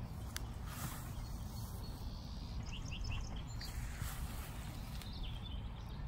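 Outdoor ambience over a lawn: a steady low rumble and a few soft clicks, with a short run of faint high chirps a little under halfway through, the kind a small bird makes.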